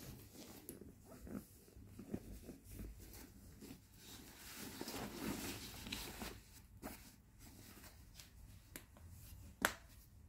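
Rustling of a quilted fabric stroller footmuff being handled and fitted over the seat, with scattered light clicks and one sharper click near the end.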